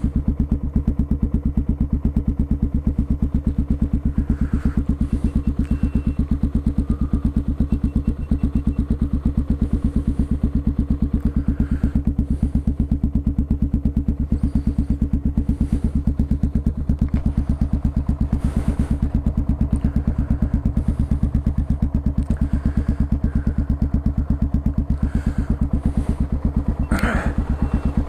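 CCM DS 644's big single-cylinder engine idling steadily, with an even, regular thump.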